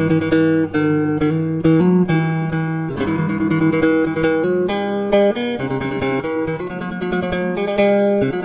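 Background music: acoustic guitar plucked and strummed, notes struck every fraction of a second.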